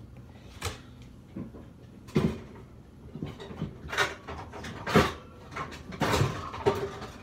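Kitchen things being rummaged through and moved about while a wooden mandoline slicer is fetched: five or six separate knocks and clatters spread over several seconds, the loudest about five seconds in, with rustling in between.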